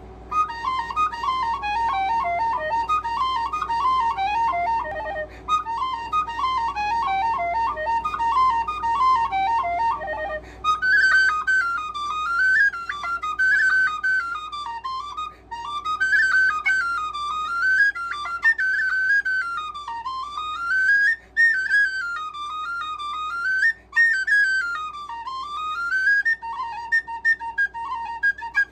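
Tin whistle playing a fast Irish traditional session tune in E minor, a single ornamented melody line with brief breath breaks every few seconds. About ten seconds in, the melody jumps up into the whistle's higher octave.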